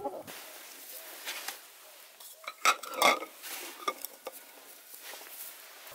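Hen's eggs being gathered from a straw-lined wicker nest basket: straw rustling and scattered light clicks, the loudest pair about three seconds in.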